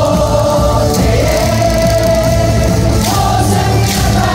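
A baseball stadium crowd singing a cheer song together in unison, long held notes from thousands of voices over loud amplified music.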